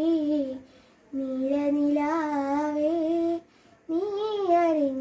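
A young girl singing a Malayalam light song (lalithaganam) unaccompanied, in long held, gently wavering phrases, pausing briefly for breath about a second in and again about three and a half seconds in.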